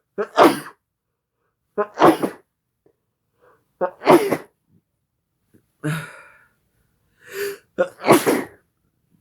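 A person sneezing in a rapid series, about one sneeze every two seconds, each a sudden loud burst. The fit is brought on by snuffing chhinkni sneezing powder.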